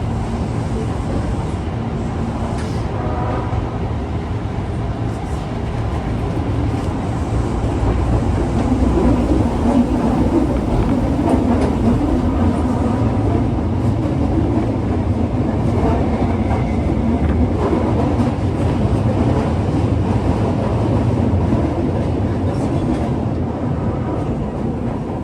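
Osaka Metro 22 series subway car 22962, a car known for an unusual running noise, running between stations: a steady rumble of wheels on rail and traction motors. It grows louder about eight seconds in and eases off near the end.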